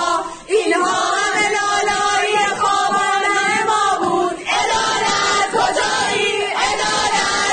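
A group of students singing a protest song together in unison, with a short break about half a second in.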